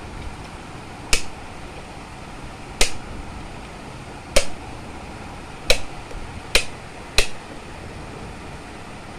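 Rotary speed-selector knob of a Longway Dlx 750 W mixer grinder clicking through its positions: six sharp clicks, coming closer together towards the end.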